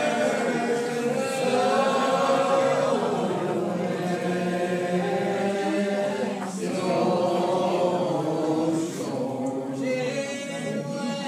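Congregation singing a lined-out hymn unaccompanied in the Old Regular Baptist style, many voices drawing out long, slow notes together; the singing thins out near the end.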